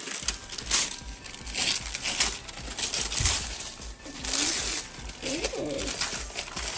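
Christmas wrapping paper crinkling and tearing as a present is ripped open by hand, with a few brief wordless vocal sounds a few seconds in.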